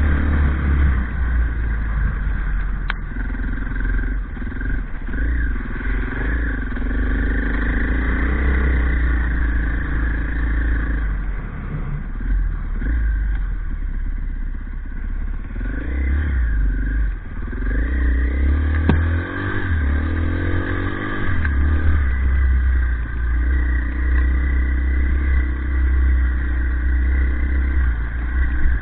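Off-road motorcycle engine running under way, its revs rising and falling with the throttle over a steady low rumble, with a couple of sharp knocks from the bike over the rough trail.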